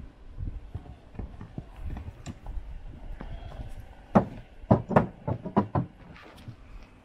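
Horse walking on dirt, then its hooves knocking loudly on the boards of a wooden bridge obstacle as it steps up onto it about four seconds in, about six strikes in quick succession.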